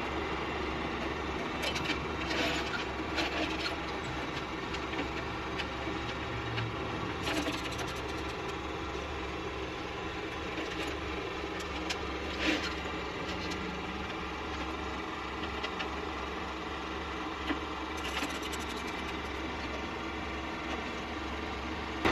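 Rollback tow truck's engine idling steadily at a distance, with a few faint clicks and clanks from the wheel tie-down straps being fastened and tightened at intervals.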